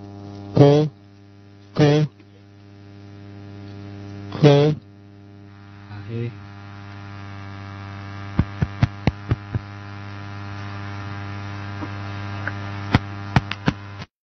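Electrical mains hum from a PA sound system, slowly growing louder. Three short, loud buzzes come in the first five seconds, then a run of sharp crackles. The sound cuts off suddenly just before the end.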